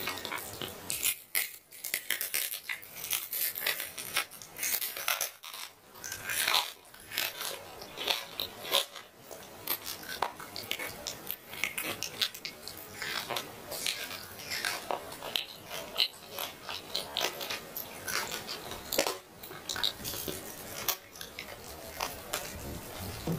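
Grilled chicken being torn apart by hand: a steady run of irregular crackles and crisp tearing from the skin and meat as they split.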